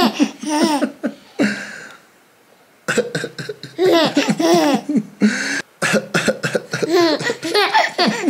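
A young baby laughing and squealing in short rising-and-falling bursts, in three spells with a brief quiet gap after the first.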